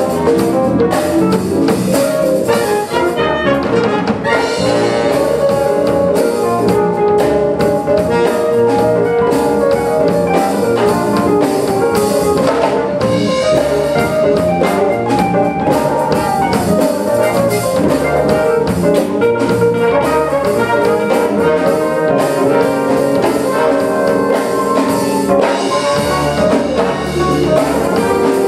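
Live wind band playing: trumpets and trombones over a drum kit, with keyboard and electric bass.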